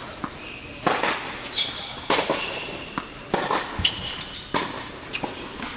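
Tennis ball hits and bounces during a rally on an indoor hard court: sharp pops of racket strings on the ball and the ball on the court, about one every second, echoing in the hall. Short high squeaks of tennis shoes on the court come between the hits.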